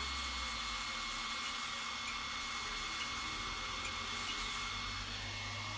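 Small electric motor driving the threaded spindle of a homemade snow plow on an RC monster truck, a steady whirring hiss with a thin whine that shifts in pitch about five seconds in.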